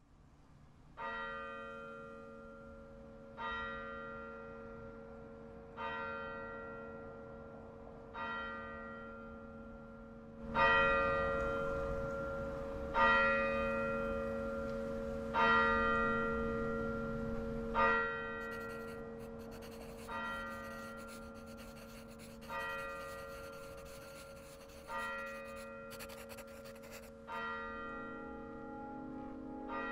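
A single church bell tolling slowly, one strike about every two and a half seconds, each note ringing on and fading before the next. The strikes are loudest through the middle stretch.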